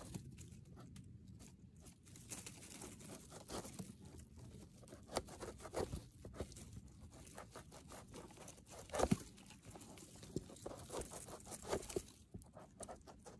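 Knife shaving the dirty base off a king bolete's stem close to the microphone: a run of irregular soft scrapes and crunches as the blade pares the firm flesh, a few strokes louder than the rest.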